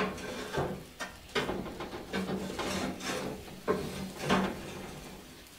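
Steel grill grate under a braai's charcoal top-heat box being slid and shifted into place, a run of scraping metal clanks about every half second that die away near the end.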